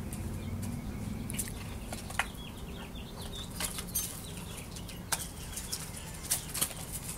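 Gravel crunching and clicking in short, irregular bursts as a Saint Bernard puppy paws and mouths at a toy among the rocks.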